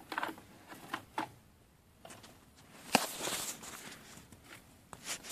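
Handling noise from a phone being moved and set down on carpet: scattered light knocks and rustles, with one sharper click about three seconds in.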